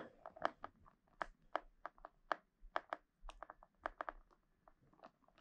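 Hands unpacking small packaged items, making quick irregular light clicks and taps, several a second.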